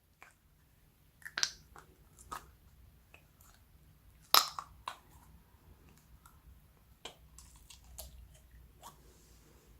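Slime being mixed and squished, giving irregular sticky pops and clicks, with the loudest pop about halfway through.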